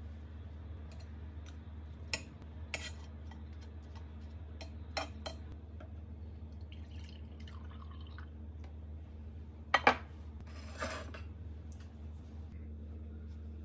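Light kitchen clatter of tableware over a steady low hum: scattered clicks and knocks, milk poured into a drinking glass a little past the middle, and two sharp knocks close together about ten seconds in, the loudest sound, followed by a short rattle.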